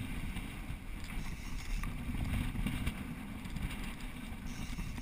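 Steady low rumble of a sportfishing boat underway: wind buffeting the microphone together with water rushing past the hull.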